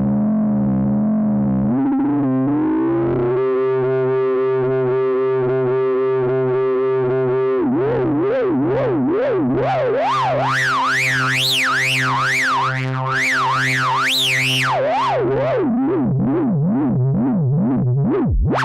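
Korg Kronos 2 synthesizer playing a demo patch: a held, wavering tone glides up in pitch over a low note pulsing about twice a second, then a fast zigzagging sweep climbs high and falls back.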